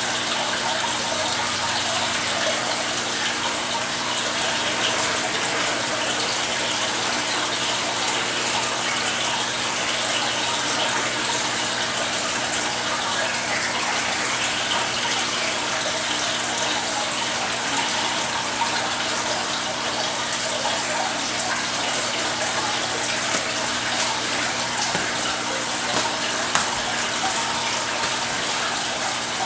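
Aquarium filter running: a steady rush of water pouring back into the tank, with a low pump hum beneath it.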